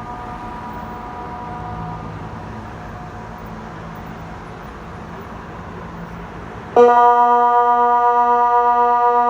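Gap between blasts of the water-alarm signal, with background noise and the fading tone of a more distant Kockum Sonics DELTA 6 siren dying away about two seconds in. Near the end the nearby Kockum Sonics DELTA 6 electronic siren starts abruptly on its next low, steady continuous tone, with a slight regular pulsing.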